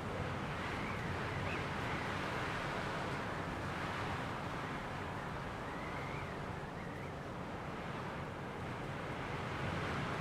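Wind blowing through trees, a steady rushing hiss, with a few faint high chirps about a second in and again around six to seven seconds.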